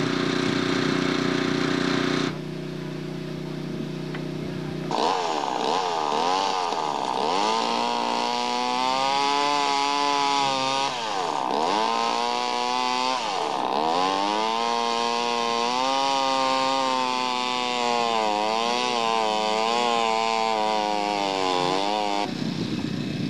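Chainsaw engine running, its pitch dipping sharply and climbing back again and again as the throttle is worked or the chain bites, then cutting off suddenly near the end. For the first few seconds a steadier engine hum is heard instead.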